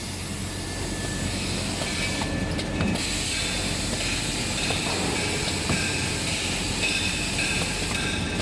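Automatic maxi-roll toilet paper band saw cutting machine running: a steady low motor hum with irregular mechanical clatter and clicks.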